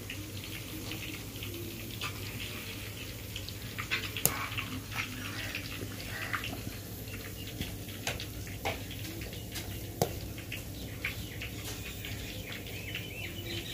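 Freshly fried chicken pakoras crackling and ticking faintly as they cool on paper towels, in scattered irregular clicks, over a steady low hum.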